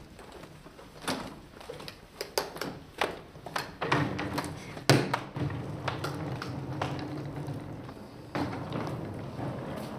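Hard-shell suitcase bumping down stone stair steps as it is carried: a string of knocks and thuds, the loudest about five seconds in. A steady low rumble follows as it reaches the floor.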